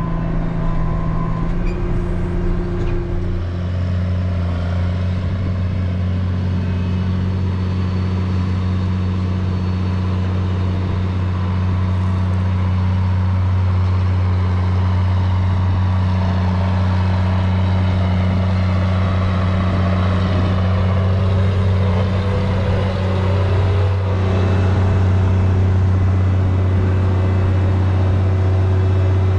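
Tractor engine running steadily under load, driving the grain cart's unloading auger as it fills a semi trailer with shelled corn.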